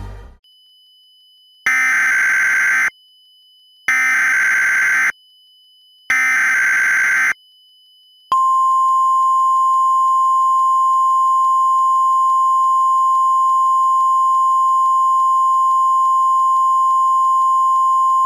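Emergency Alert System header: three bursts of buzzy digital data tones, each about a second long with a second's pause between them, then a single steady alert tone held for about ten seconds. This is the SAME header and attention signal that opens an emergency alert message.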